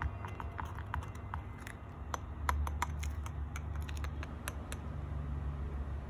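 Liquid resin being stirred in a glass jar: irregular light clicks and taps of the stirring utensil against the glass, over a low steady hum.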